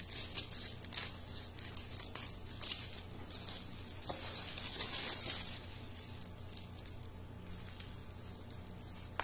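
Silver metallic foil gift wrap crinkling and rustling as it is cut with scissors and handled. The irregular crinkling is loudest about halfway through and settles down after that.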